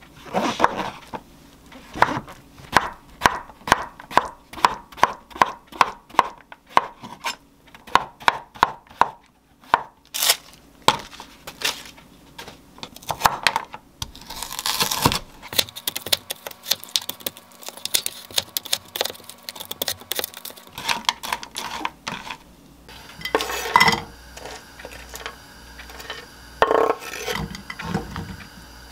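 A chef's knife chopping king oyster mushrooms on a wooden cutting board: a long run of even chops, about three a second. Later come some scraping, then a few knocks and clatters as the pieces are scraped off the board into a frying pan.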